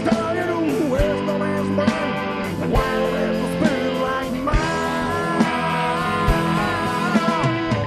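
Live country-rock band playing: fiddle and electric guitar over drums, with a kick drum thump about once a second.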